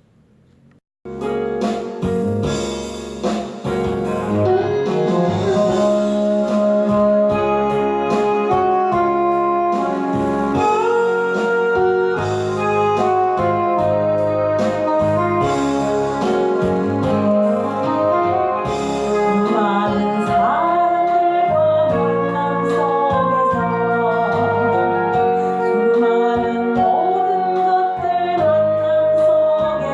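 Praise-song music with sustained instrumental notes, starting about a second in after a brief silence.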